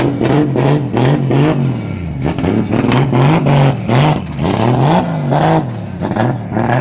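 Modified Datsun drag car's engine revved in repeated short blips while the car creeps forward, its pitch rising and falling about once or twice a second, with sharp cracks between the blips.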